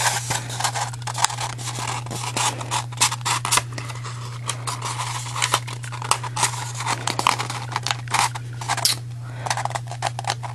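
Cardstock paper rustling and crinkling in the hands as it is rolled and pressed into a cone, with irregular sharp crinkles, over a steady low hum.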